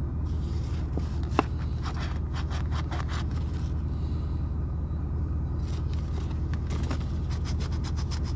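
A coin scratching the coating off a lottery scratch-off ticket in quick short strokes, in two runs, the second starting a little past halfway. A single sharp click comes about a second and a half in, and a steady low rumble runs under it all.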